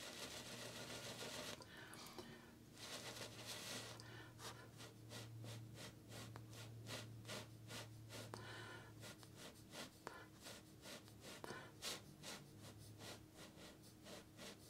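Faint puffs of breath blown through a straw onto wet acrylic paint: a couple of longer soft blows in the first few seconds, then many short, quick puffs at about three a second.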